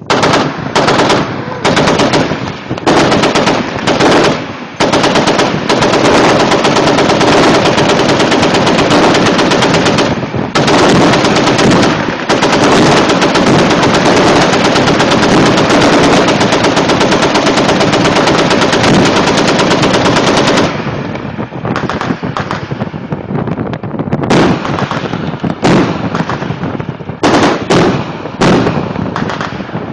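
Naval automatic weapons firing: a few short bursts, then near-continuous rapid fire for about fifteen seconds with two brief breaks, then quieter, shorter bursts from about twenty seconds in.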